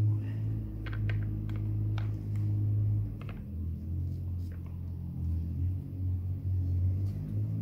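Light clicks and taps of a metal rotisserie spit and prongs being handled on a wooden cutting board as raw duck breast, onion and orange pieces are pushed onto it, scattered over a steady low hum that shifts in pitch a few times.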